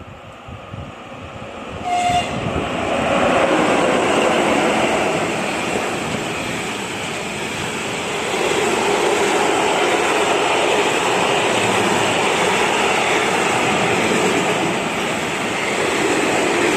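A short horn blast from a train about two seconds in, then the train passes, with a loud, steady rush of wheels on rails and carriage noise.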